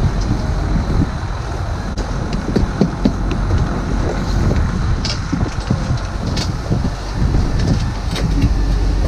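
Snowcat engine running steadily with wind buffeting the microphone, and a few short knocks as boots climb the metal steps into the cab.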